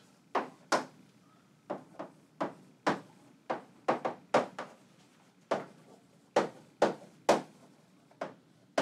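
Chalk writing on a chalkboard: a run of sharp, uneven taps, about two a second, as the chalk strikes the board at each stroke, with a short pause in the middle.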